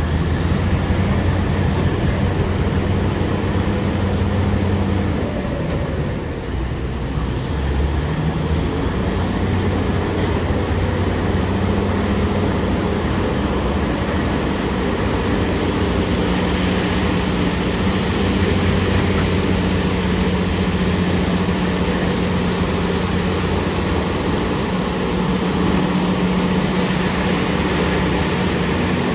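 BEML BD355 crawler bulldozer's diesel engine running steadily under load. The engine note dips for a moment about six seconds in, then picks back up and holds.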